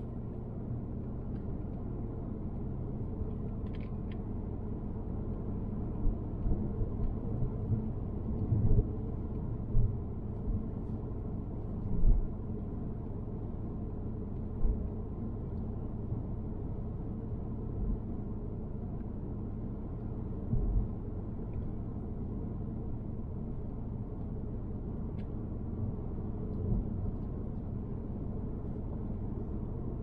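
Car driving, heard from inside the cabin: a steady low rumble of road and engine noise, with a few brief low thumps along the way.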